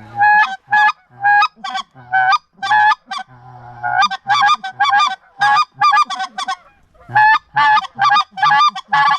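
Hand-blown Canada goose call working birds: rapid runs of loud, breaking two-note honks and clucks, about two to three a second, with short pauses about three seconds in and about seven seconds in.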